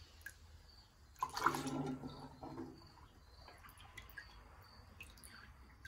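Fermented orange pruno being ladled from a plastic bowl and poured through a funnel into a glass bottle: quiet dipping, splashing and dripping of liquid, louder for a moment about a second in.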